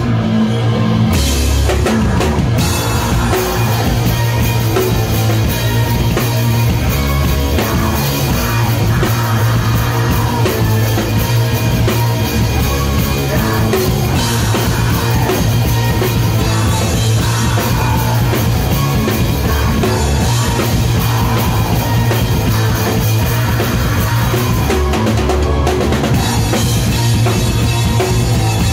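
Raw black metal band playing live at full volume, with the drum kit played without a break and prominent in the mix.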